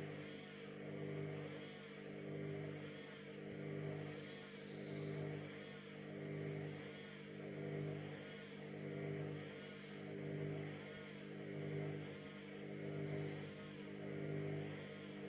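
Candy washing machine's motor whirring as the drum turns at low speed with an unbalanced load of bedding, the hum swelling and fading about once every 1.3 seconds with each lopsided turn: the machine is trying to balance the load before it will spin.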